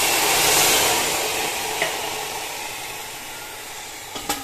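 Water poured from a glass into a metal pot of raw mutton pieces, splashing loudly at first and tapering off over a few seconds. Near the end, a single sharp clink of a utensil against the pot.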